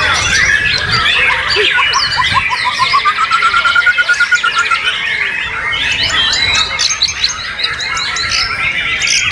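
White-rumped shamas singing, several songs overlapping, with a rapid trill of repeated notes rising in pitch around the middle.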